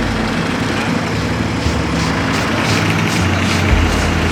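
Engine of a Lucas slabber sawmill running steadily under load, its low drone shifting slightly in pitch.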